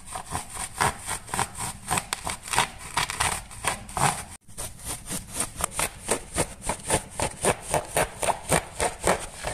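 Coarse-toothed hand saw cutting through an ablative-coated mineral wool fire batt, in quick back-and-forth strokes about four a second, with one brief break about four and a half seconds in.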